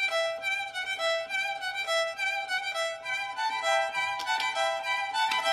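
Background instrumental music led by a violin: a held high note with a lower note repeating about once a second.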